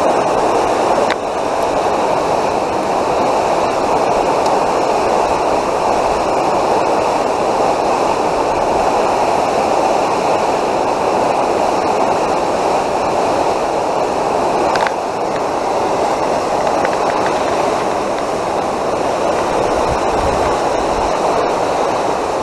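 A steady, even rushing noise that does not change, with a faint click about a second in and another at about fifteen seconds.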